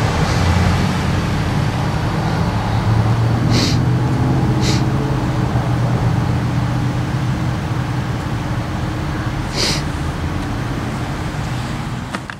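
Passenger train's diesel locomotive engine running steadily as the train moves off, with three short high hisses about three and a half, four and a half and nine and a half seconds in. The sound fades out at the very end.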